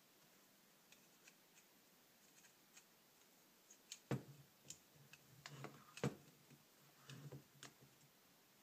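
Faint scattered clicks of small metal carburetor parts being handled, with two sharper knocks about four and six seconds in, as the carb bodies and throttle linkage are worked apart.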